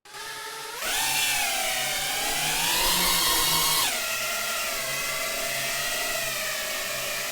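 FPV drone's brushless motors whining. The pitch jumps up about a second in as the throttle is opened, climbs higher, drops back a little before the four-second mark, then wavers at a steadier pitch.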